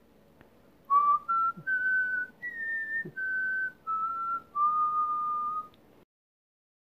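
A person whistling a short tune of about seven notes that climbs and then falls, ending on a longer held note.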